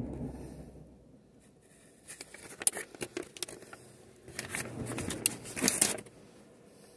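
Rustling and crinkling of takeaway burger packaging being handled, with sharp clicks, in two bursts: about two seconds in and again about four and a half seconds in.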